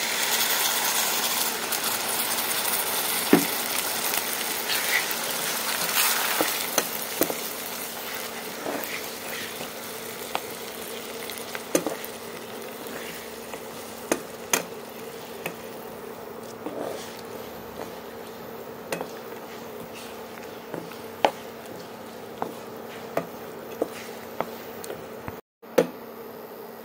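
Olive and apple chutney sizzling in a hot nonstick pan as liquid is poured in, the sizzle loudest over the first several seconds and then settling to a quieter simmer. Scattered clicks of a wooden spatula knocking against the pan.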